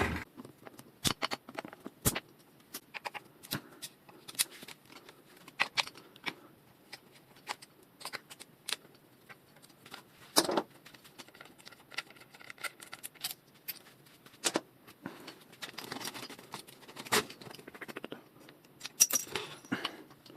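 Irregular metallic clicks, clinks and light knocks of hand tools and bicycle parts as the brake and front wheel are taken off a bicycle, with a heavier knock about halfway through.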